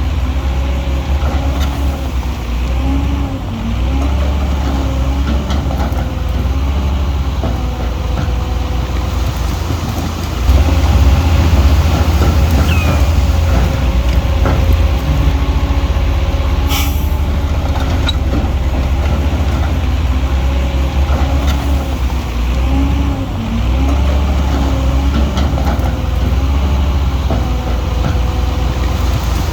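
Heavy diesel earthmoving machinery, a bulldozer, running under load with a deep rumble, its engine pitch rising and falling as it works. It gets louder about ten seconds in, and there is a single sharp click a few seconds later.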